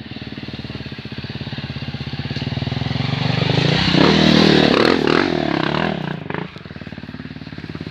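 Dirt bike engine pulling up a slippery trail climb, growing louder as it approaches and revving hardest about four seconds in, then dropping away quickly a little after six seconds as the bike passes and moves off.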